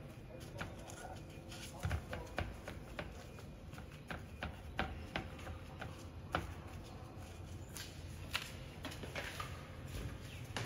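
Scattered light taps and knocks as sausages are handled and set down on a plastic cutting board.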